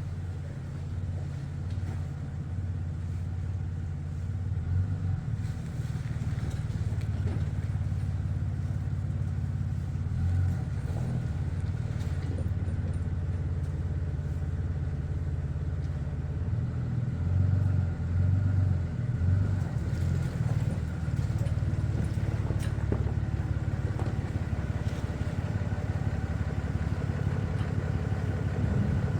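Pickup truck engine running steadily at low speed as the truck is driven in slowly, growing gradually louder as it comes closer.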